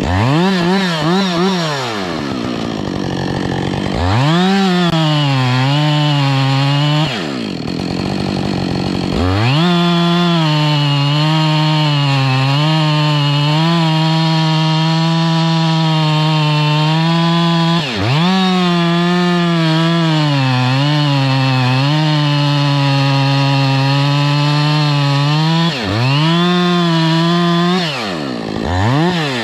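Two-stroke chainsaw revved up and held at full throttle in several long runs, its pitch sagging and wavering under load as it cuts into a felled log. It drops off briefly between runs, with a longer pause about seven seconds in.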